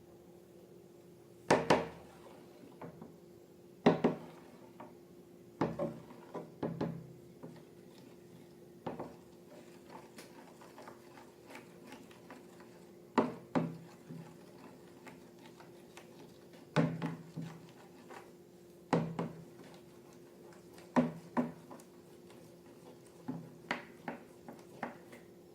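Slime being pressed and poked by hand, giving irregular sharp clicks and pops, some in quick pairs or short runs, over a faint steady hum.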